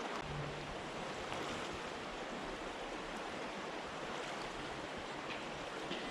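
Steady rush of a mountain river flowing.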